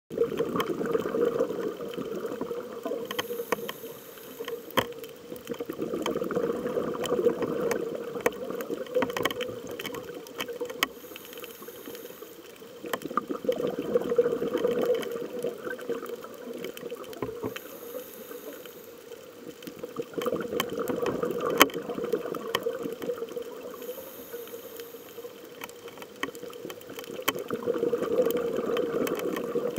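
Scuba diver breathing through a regulator, heard through an underwater camera housing: a short hiss on each inhale, then a bubbling rumble of exhaust bubbles on each exhale, repeating about every seven seconds. Scattered sharp clicks sound throughout.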